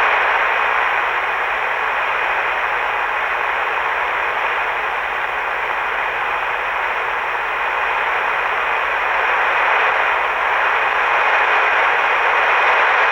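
Steady hiss of shortwave static from a County Comm GP5 SSB portable receiver tuned to 7315 kHz, with no programme audio heard. The hiss is thin-sounding and confined to the speaker's narrow audio band.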